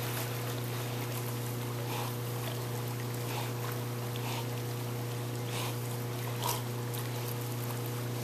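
A swimming dog, carrying a ball in its mouth, taking short breaths every second or so as it paddles, over a steady low hum.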